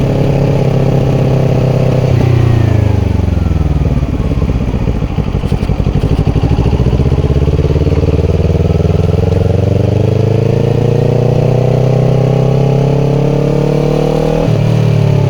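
Kawasaki Ninja 400's parallel-twin engine through a Yoshimura slip-on exhaust, riding at highway speed. The revs fall off steeply about two seconds in, then climb steadily for about eight seconds, and the engine note shifts suddenly near the end.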